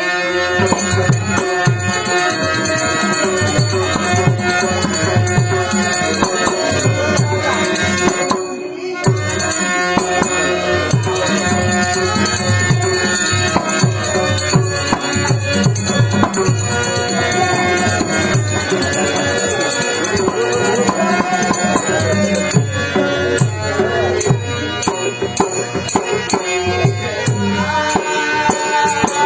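Traditional Indian stage music: a hand drum beating steadily under a held melody, with jingling rattle-like percussion. The music drops back briefly about eight seconds in, then carries on.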